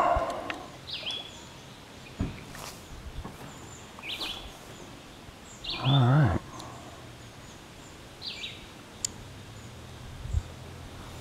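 A bird calling over and over, a short high call with a falling hook every two seconds or so, over quiet lakeside ambience. A rustle at the start and a short low hum-like vocal sound about six seconds in, the loudest moment.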